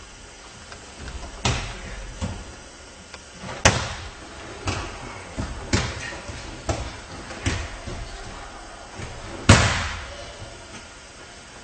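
Repeated thuds and slaps of bodies hitting the mat, the breakfalls of aikido practice. They come about once a second at irregular spacing, the loudest one near the end.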